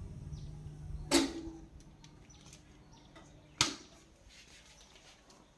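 A low steady amplifier hum that cuts off with a sharp click about a second in, followed by a second sharp click a couple of seconds later.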